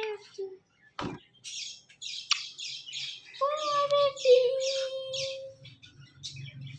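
Ringneck parrots calling: a quick run of about a dozen short, high chirps, with a steady held note sounding under them partway through. A sharp click about a second in.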